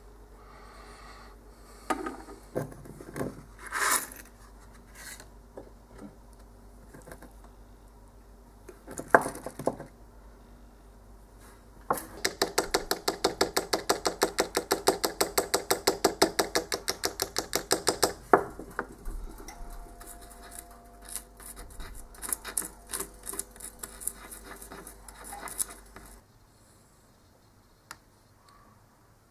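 Seashells used as paint pots knocking, clinking and scraping on a wooden table as they are handled, with a fast, even run of ticks for about six seconds in the middle as pigment is worked in a shell.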